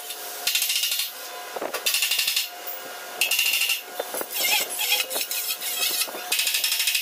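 Hand or power tool working on the steel of a tractor rotary tiller's rear door, in about six harsh, hissing scraping bursts, each about half a second to a second long, with a faint ring in them.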